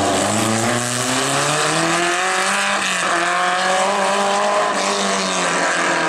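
SEAT rally car's engine revving hard under acceleration, its pitch climbing, dipping at a gear change about three seconds in, then climbing again.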